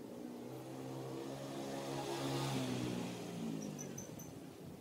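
A motor vehicle driving past, its engine hum and tyre hiss swelling to a peak about halfway through and then fading away.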